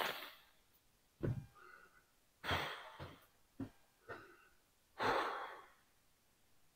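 A man breathing hard, a series of heavy exhales and gasps about a second apart, from the strain of carrying a heavy steel beam.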